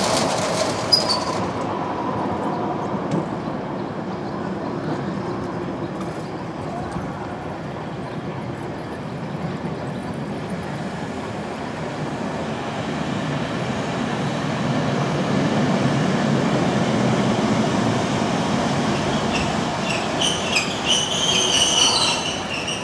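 A Hiroshima Electric Railway street tram running on its rails, a steady rumble that grows louder in the second half as it approaches. High squealing tones come near the end.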